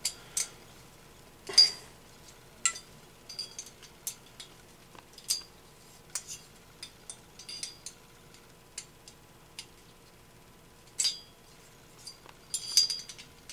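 Irregular sharp metallic clicks and clinks of a hex key working in the cylinder bolts of a 23cc two-stroke engine as the bolts are tightened a little at a time, with a quick cluster of clinks near the end.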